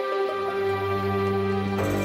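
Soundtrack music with long held notes; a low drone comes in about half a second in, and the music swells just before the end.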